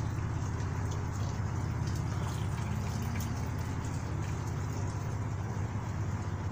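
A car driving slowly: a steady low engine and road rumble.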